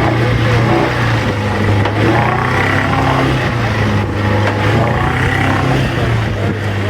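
Boat engine running at a steady low hum.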